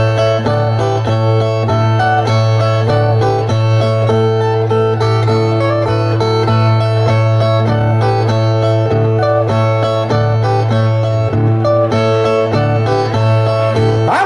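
Two resonator violas playing together, a run of quick plucked notes over a steady low tone: the instrumental interlude of a cantoria de viola between sung stanzas.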